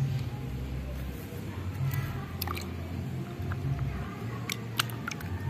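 Hand swishing a muddy plastic toy figurine in a plastic bucket of water, with small splashes and drips, over a low rumble.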